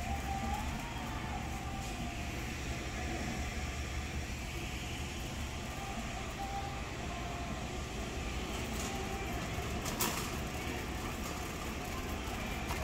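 Metal shopping cart rolling over a smooth concrete warehouse floor: a steady low rumble and rattle from its wheels and basket, with one sharp click about ten seconds in.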